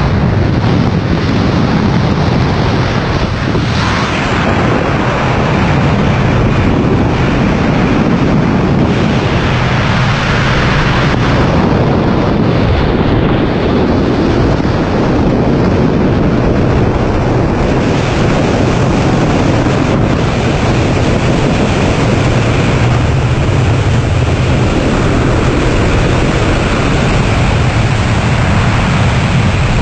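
Loud, steady rush of wind buffeting the microphone, with a low steady drone underneath, typical of air rushing past during a jump from an aircraft.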